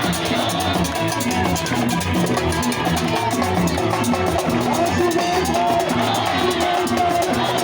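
Music played by a band: a drum kit keeps a steady beat under sustained melodic lines.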